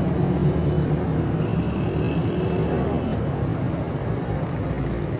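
Busy street traffic: small motorcycle engines running and passing close by over a steady hum of vehicles.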